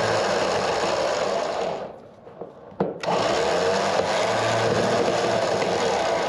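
Electric Warn winch running with its gearbox grinding as the winch fails, in two runs of a few seconds each with a sharp click just before the second.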